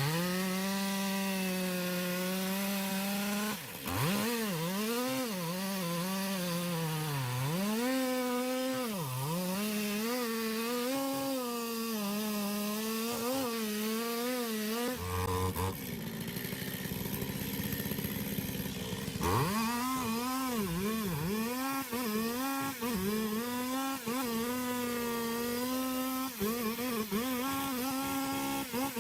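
Chainsaw engine running at high revs, its pitch dropping and recovering again and again as it bites into the wood. It breaks off for a few seconds about halfway through, then runs on.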